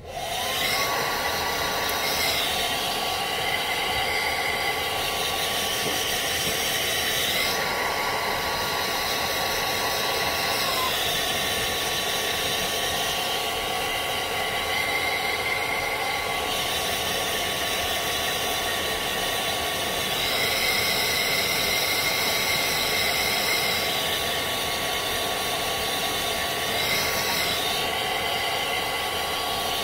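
Handheld hair dryer switched on, its motor whine rising briefly as it spins up and then holding steady under the rush of air. The tone of the airflow changes several times.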